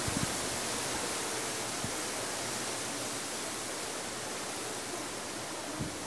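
Steady hiss of background noise, strongest in the high range, with a couple of faint low taps near the start and near the end.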